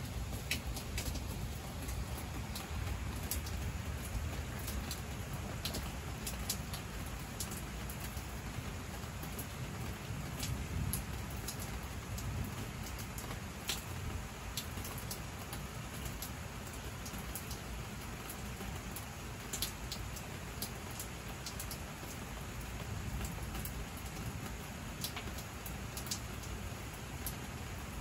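Steady rain falling at night, with frequent sharp drops ticking close by.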